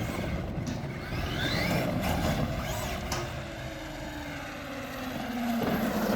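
Electric motor of a Traxxas X-Maxx RC monster truck whining as it is driven: several short rising whines as it speeds up, then a long falling whine as it slows, over tyre and ground noise.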